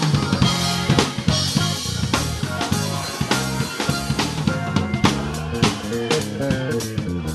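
Live band playing, heard close to the drum kit: kick drum, snare and cymbals struck in a steady groove over a bass guitar line.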